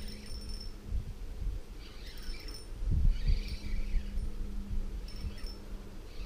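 Daiwa Legalis 1500 spinning reel being wound in on a lure retrieve: a steady low whir from about three seconds in, over irregular low thumps and a few faint, short high chirps.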